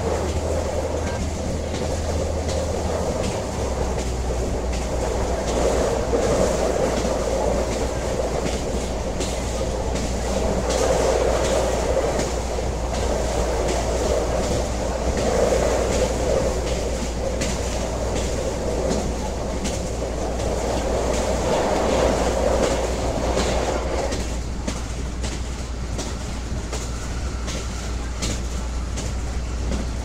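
Train running on the rails: a steady low rumble with a rolling noise that swells and eases every few seconds, and a run of wheel clicks. The rolling noise falls away a little after 24 seconds in.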